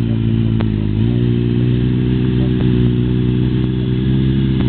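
Motorcycle engine running steadily at low revs. Its note sags briefly and then picks up again about a second in.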